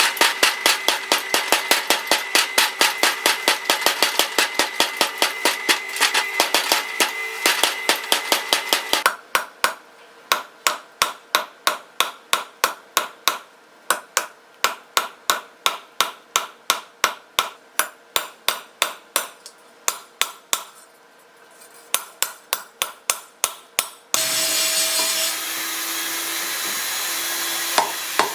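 Rapid, regular hammer blows on steel being forged into a rapier blade, about three to four strikes a second, slowing a little and growing fainter about a third of the way in. Near the end a steady hum and hiss joins under the strikes.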